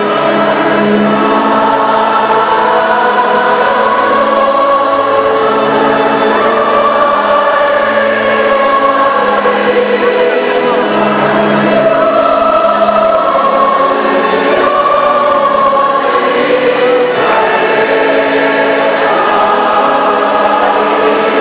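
A choir singing a slow church hymn, with long held notes that change every second or two.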